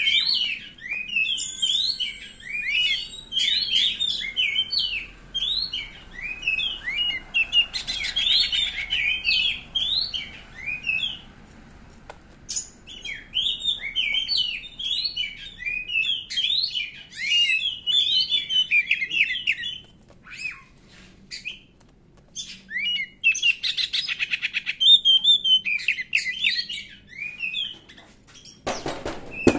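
Oriental magpie-robin singing fast runs of varied whistled chirps in bursts with short pauses, twice breaking into a harsh buzzy rattle. A short rustling thud comes near the end.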